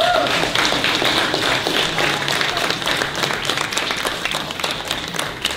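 Audience applauding: many hands clapping in a dense patter.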